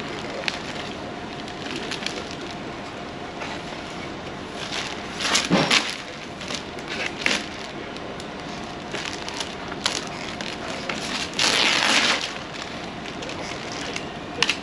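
Crunching, scraping work noise with scattered clicks, and two louder bursts, one about five seconds in and one near twelve seconds in.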